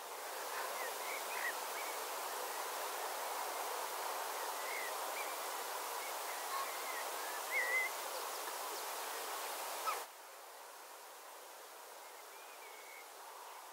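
Rural outdoor ambience: a steady hiss of open-air background noise with small birds chirping now and then. The level drops suddenly about ten seconds in, and quieter hiss and chirps go on.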